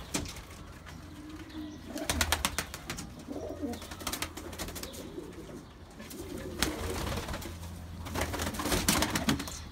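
A tumbler pigeon flapping its wings while held in a hand, in several bursts of rapid wing claps, the longest near the end, with pigeons cooing low in the loft.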